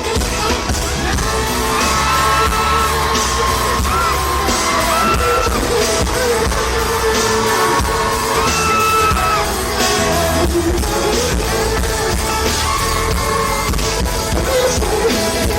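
Live pop music played loud in a large hall: a singer holds long wavering notes over a full band, with crowd yelling.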